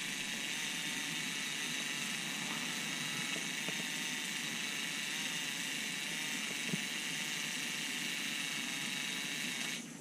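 Small battery-powered electric smelt-fishing reel whirring steadily as it winds in a heavy line with three wakasagi on it, stopping just before the end.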